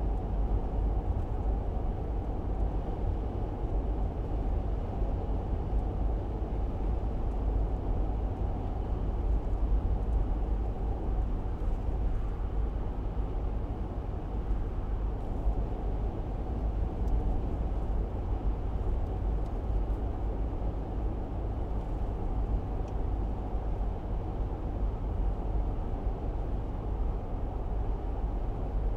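Car driving along a road: a steady low rumble of tyres and engine that does not change.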